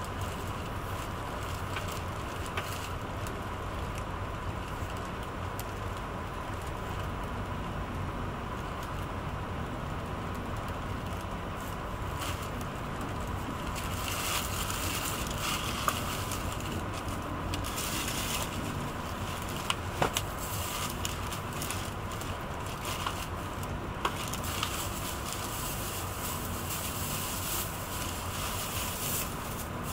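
Steady running noise inside the cabin of a Renfe AVE S-102 (Talgo 350) high-speed train at speed: a low rumble and hiss with a faint steady whine. The hiss gets louder about halfway through, and a few sharp clicks come in the second half.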